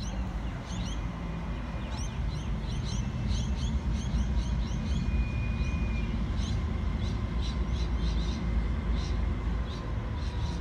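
Diesel locomotives at the head of a coal train approaching, their engines a low, steady rumble, with small birds chirping over it.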